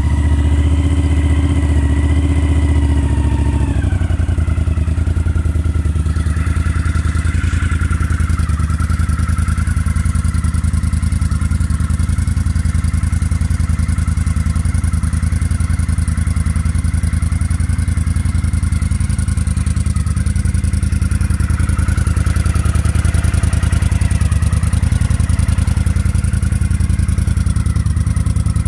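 Honda CX500 cafe racer's V-twin engine running. Its revs are a little raised at first, drop about four seconds in, and then settle into a steady idle.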